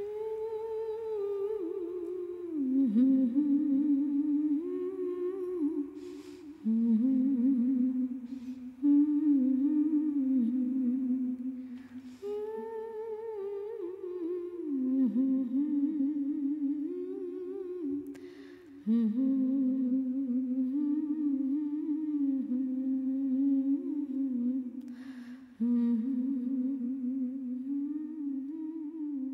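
A single voice humming a slow, wordless melody in phrases of about six seconds, with a short breath between phrases.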